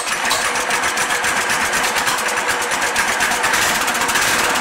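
Predator 212cc single-cylinder engine on a go-kart pull-started, catching at once and running steadily. It runs smoothly, the governor arm's return spring now back in place.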